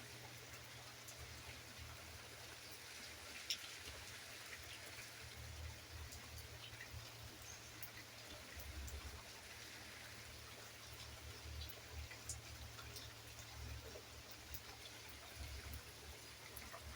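Steady light rain falling, with scattered individual drops ticking on surfaces and a low rumble underneath.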